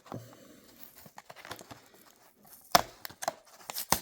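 Plastic blister and card packaging being pried and torn open, crinkling with a quick run of clicks and snaps, the loudest snap about three-quarters of the way through.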